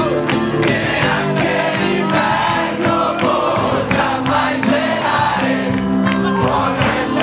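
Music with a group of voices singing together over drum hits and sustained bass notes.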